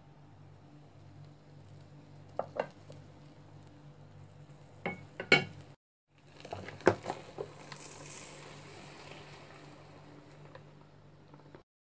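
A sandwich is pushed off a wooden spatula into a hot Selecline electric sandwich toaster, with a few knocks and scrapes on the plates and plastic. About seven seconds in, the lid shuts with a clack. A brief sizzle follows as the buttered bread presses onto the heated plates.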